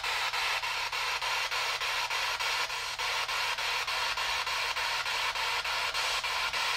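Spirit box sweeping through radio channels: a steady hiss of static chopped by short clicks and dropouts about four times a second as it jumps from station to station.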